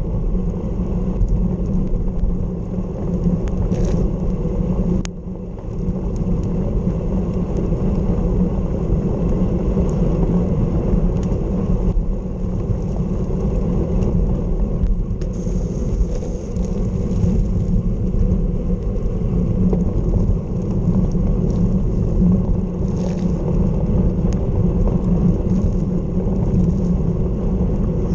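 Steady low wind rumble on the microphone of a bicycle-mounted camera moving at about 33 km/h, mixed with tyre noise on wet tarmac. It dips briefly about five seconds in.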